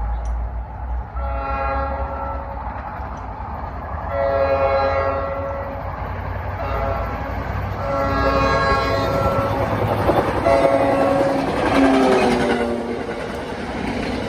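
Horn of an NJ Transit push-pull commuter train sounding four blasts, long, long, short, long: the grade-crossing signal. Its pitch drops about 12 seconds in as the train passes, over the low rumble of the diesel and the wheels clacking on the rails.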